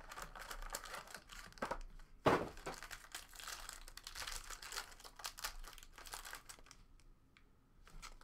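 Clear plastic wrapper on a pack of trading cards being torn open and crinkled by hand, with one louder crack about two seconds in; it goes quieter near the end.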